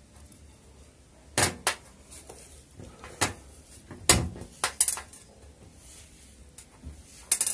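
Sharp, irregular metallic clicks and clinks from a small brushless motor being handled, its magnet bell knocking against the stator and fingers. The loudest comes about four seconds in, with a quick cluster near the end.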